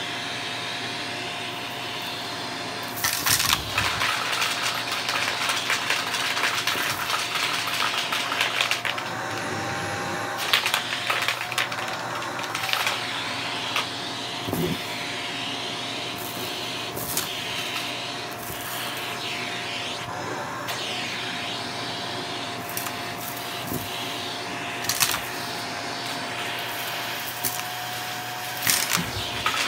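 Shark vacuum cleaner running on carpet: a steady motor whine, with the scrubbing noise of the head rising and falling as it is pushed back and forth, and occasional knocks.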